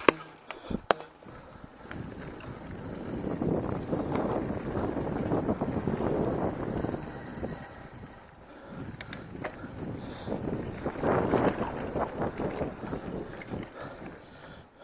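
Mountain bike riding over a dirt singletrack: tyres crunching on the trail, with chain and frame rattle. The rolling noise swells twice and is broken by a few sharp clicks.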